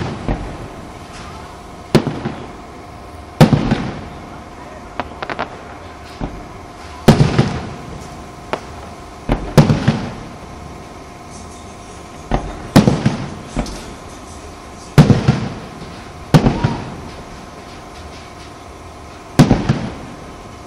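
Aerial firework shells bursting overhead: a sharp bang every one to three seconds, each dying away over about a second, with a few smaller cracks between the big ones.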